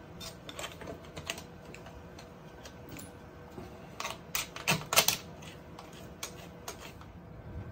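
Scattered light clicks and taps of a 3D-printed plastic support and its screws being fitted by hand onto a 3D printer's aluminium bed frame, most of them bunched about four to five seconds in.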